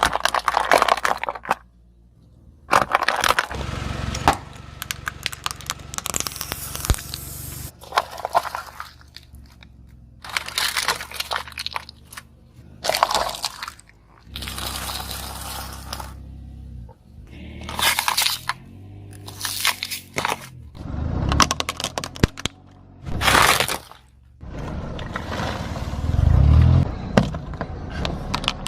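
A car tyre rolling over and crushing brittle objects: a run of crackling, crunching bursts a second or two apart, with the car's engine running low underneath.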